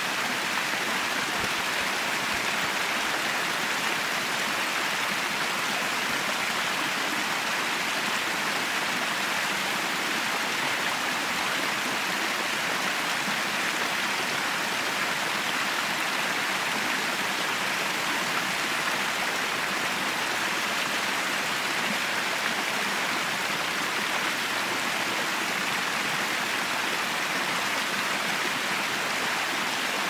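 A small stream cascading in thin falls over rock ledges: a steady, unbroken rush of running water.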